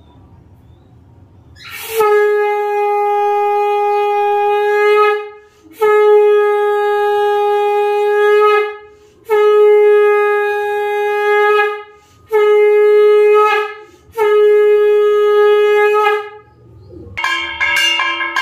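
A conch shell (shankha) blown in five long, steady blasts of the same pitch with short breaths between. A brief, different sound with several pitches follows near the end.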